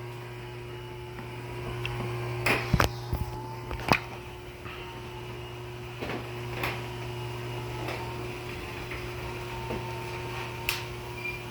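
Martin DC37E garage door opener motor running steadily while raising the door, a steady hum with a few sharp clicks and knocks from the door. Going up it runs fine, without the awful noise it makes when lowering the door.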